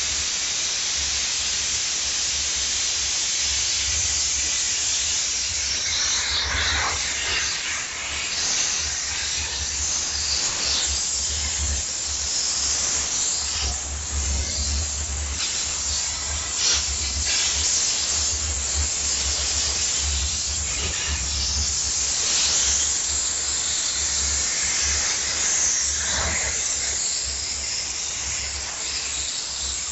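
Steam jet gun of a diesel-heated steam cleaner blowing a steady hiss of steam. Underneath runs a low, uneven putt-putt, which comes from steam with a high moisture content, not from unstable running.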